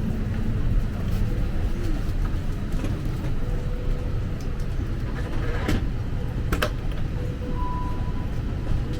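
Steady low rumble of airliner and airport machinery during boarding, with a few sharp clicks about two-thirds of the way through and a short faint beep near the end.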